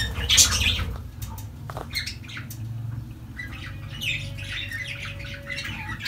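Lovebirds squawking in two spells, at the start and again from about three and a half seconds in, with a few light knocks as their nest is opened.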